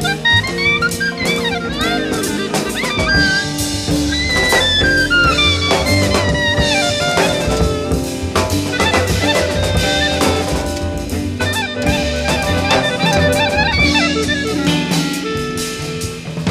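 Small jazz group playing: a legato lead melody over piano, bass and a drum kit with frequent cymbal and drum hits. The band is saxophone/clarinet, electric guitar, piano, bass and drums.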